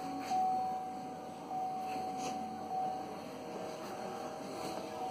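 A steady high-pitched electrical whine with a fainter lower tone beneath it, from the LS-swapped truck with the ignition switched on and the engine not yet running.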